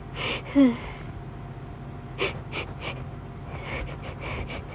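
A woman's breathy, voiced gasps, falling in pitch, as a sneeze builds, then a string of short, sharp sniffing breaths through the nose, quickening near the end.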